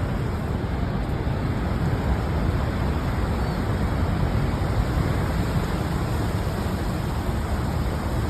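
Steady rush of water pouring over Niagara Falls, an even unbroken noise heaviest in the low end.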